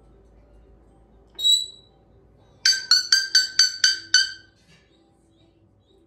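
A parrot whistling: one short high whistle, then a quick run of about seven clipped, pitched notes, roughly four a second.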